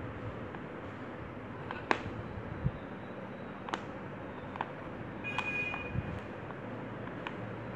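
Slate pencils clicking against each other and against a plastic plate as a hand moves them: a handful of separate sharp taps over a steady background hiss.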